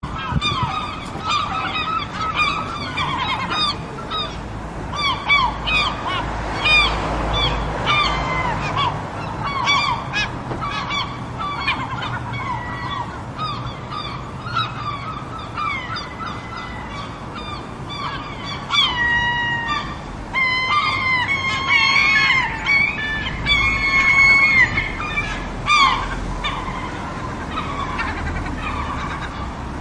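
Gulls calling over and over, many short, bending, squawking cries that overlap and crowd together for a while past the middle, over the steady wash of ocean surf.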